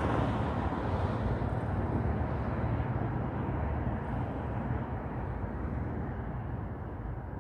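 Wind on the microphone: a steady low rumble that eases a little toward the end.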